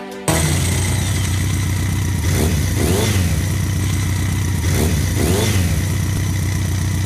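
Motorcycle engine running steadily near idle, its pitch rising and falling twice, about three and five seconds in.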